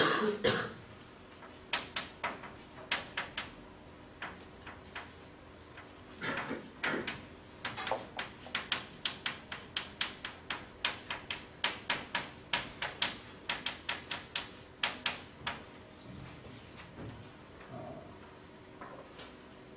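Chalk on a blackboard as lines of characters are written: quick runs of sharp taps and short scrapes, densest from about six to sixteen seconds in. A brief louder sound comes at the very start.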